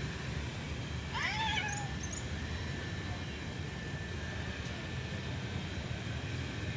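A cat's single meow about a second in, rising in pitch, then drawing out and falling away, with a couple of faint high squeaks just after it, over a steady low background rumble.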